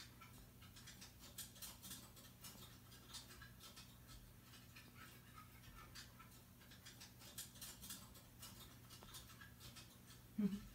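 Near silence: faint room tone with a low steady hum and light scattered ticks, and one brief low sound near the end.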